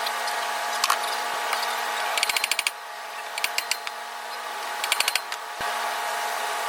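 Ratchet wrench clicking in three short, quick runs, with a single knock shortly after the last, over a steady background hum.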